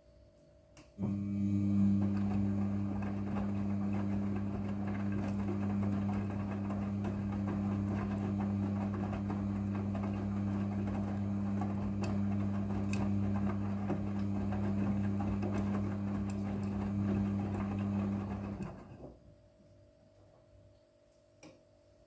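Midea front-loading washing machine turning its drum with the wet wash load in a wash-tumble phase. The motor gives a steady hum that starts abruptly about a second in and stops about 19 seconds in.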